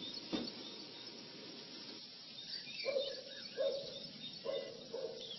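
Faint bird chirping in the background, with a sharp click near the start and a few soft handling sounds later on, as connected wires are moved aside.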